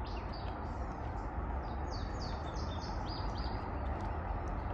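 A small songbird singing: a few short high notes, then about two seconds in a quick run of about seven clipped notes that step downward. Under it runs a steady low rush of outdoor background noise.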